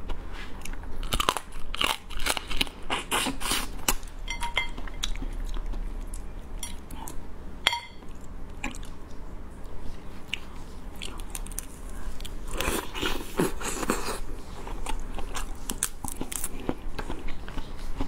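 Close-up eating sounds of soy-marinated raw crab being bitten and chewed, with many short crunches and clicks, busiest about two-thirds of the way through.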